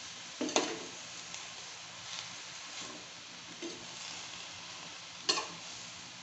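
Shredded cabbage sizzling in a stainless steel pan as it is stirred with a metal spoon, which scrapes and knocks against the pan a few times, most sharply about half a second in and again near the end.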